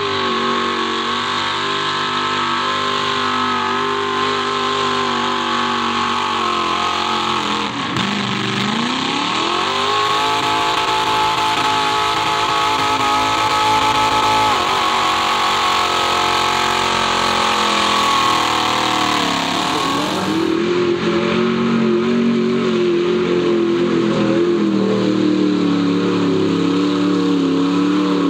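Mud-bog Jeep engines revving hard at high rpm with the wheels spinning through deep mud. The revs sag and climb back twice. Past two-thirds through, a second Jeep's engine takes over, held at steady high revs.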